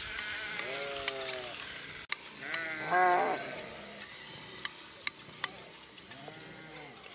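Sheep bleating three times, the loudest a wavering call about three seconds in, the last faint. Sharp clicks of steel hand blade shears snipping through the fleece come between the calls.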